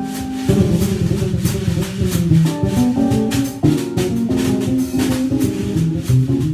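Instrumental trio of keyboard, bass and drum kit playing together: keyboard chords and bass notes that change every half second or so over a steady, light, shaker-like patter from the drums.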